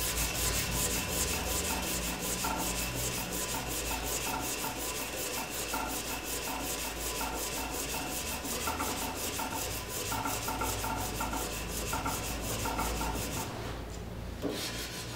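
Hand-held sharpening stone stroked quickly back and forth along the edge of a pattern-welded steel machete blade clamped in a vise: a steady, rhythmic scraping rub of many strokes a second. The strokes stop about a second and a half before the end.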